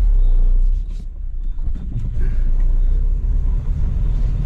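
Small van's engine and road rumble heard from inside the cab while turning around, louder at first, easing off for about a second, then picking up again.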